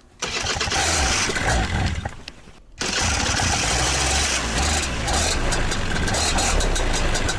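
Moster 185 paramotor engine starting up. It runs for about two and a half seconds, dies away almost completely, then catches again about three seconds in and keeps running steadily.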